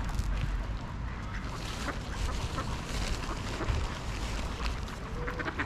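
Greylag geese and ducks at a pond's edge giving short, scattered calls over a steady low rumble.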